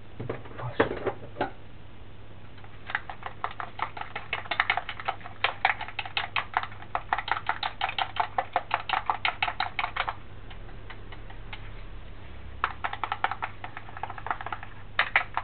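Long cooking chopsticks beating eggs in a stainless steel bowl, clicking rapidly against the metal side at about five strokes a second. The beating comes in runs with a pause of a couple of seconds past the middle, and a few knocks come in the first second and a half.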